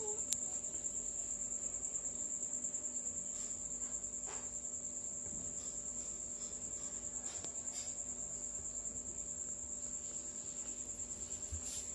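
A cricket chirping: a steady high-pitched trill of rapid, even pulses.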